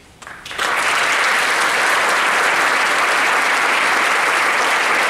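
Audience applause: a few scattered claps, then within about half a second a full, steady round of clapping.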